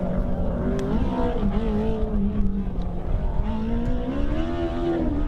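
Formula SAE race car engine under hard throttle as the car drives past through the cones, its pitch rising and falling with throttle and gear changes and climbing steadily near the end.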